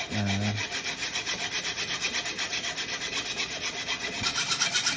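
Hand saw cutting through a bike tube in quick, even back-and-forth strokes, a steady rasp. Sawing is used instead of a pipe cutter, which would mushroom the tube's end.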